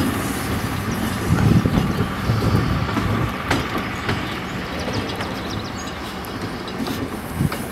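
Narrow-gauge electric tram running along the track: a steady rumble and rattle, with scattered sharp clicks from the wheels on the rails.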